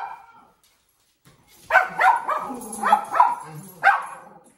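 A dog barking: one bark at the start, then a quick run of about six barks from just under two seconds in to about four seconds in.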